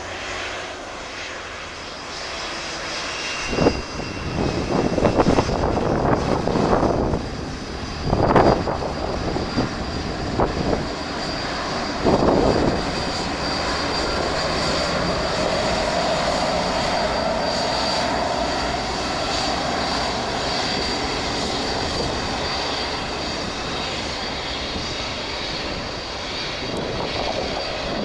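Norwegian Boeing 787 Dreamliner's Rolls-Royce Trent 1000 jet engines at takeoff power as it rolls down the runway and passes. The noise swells a few seconds in, with uneven crackling gusts for the next ten seconds or so, then settles into a steady loud rush with a whine.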